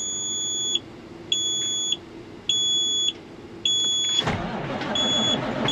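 A high electronic warning beeper sounding in a steady rhythm, about one beep a second. About four seconds in, a loud rushing noise starts underneath it.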